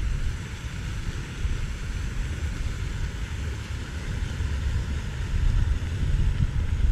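Wind buffeting the microphone outdoors: a low, irregular rumble that swells and fades over a faint steady hiss.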